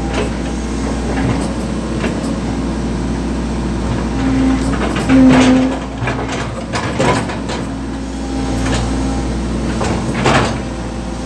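Excavator engine running steadily, heard from inside the cab, with a hydraulic whine that swells in short spells as the boom and bucket are worked. It is loudest about five seconds in, with a few knocks and clanks from the bucket on the concrete drain covers.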